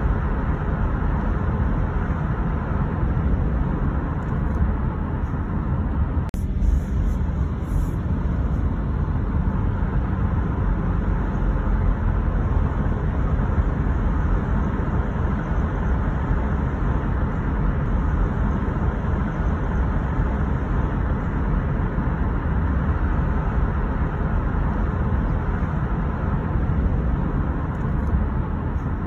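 Steady road noise of a car driving along a city street: a continuous low rumble of tyres and engine.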